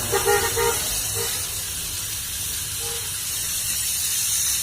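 Steady hiss of a gas brazing torch flame on refrigerator pipework, with a few short pitched squeaks in the first second.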